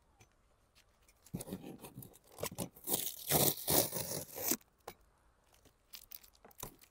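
Cardboard box being opened by hand: packing tape ripped and scraped off the box top in a short burst about a second and a half in, then a longer spell of ripping and scraping, with scattered small clicks.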